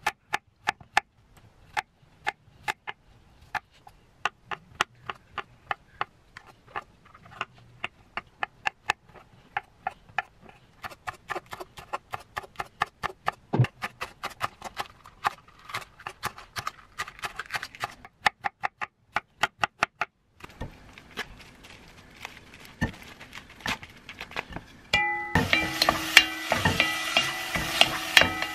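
Kitchen knife chopping vegetables on a wooden cutting board in steady, even strokes that come faster after about ten seconds. Near the end, beef sizzles in a pot while a wooden spoon stirs it.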